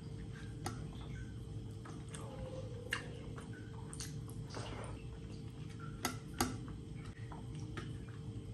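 Eating rice and curry by hand: wet squishes of fingers mixing rice on a steel plate and sharp clicks and smacks from the mouth while chewing, with two loud clicks close together about six seconds in, over a steady low hum.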